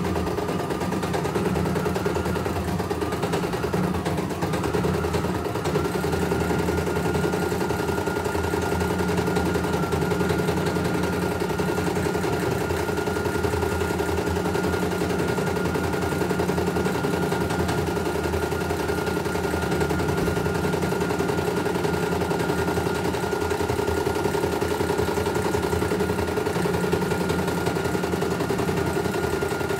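CNY E900 computerized embroidery machine stitching a test design, its needle clattering rapidly and steadily, with a steady high whine alongside.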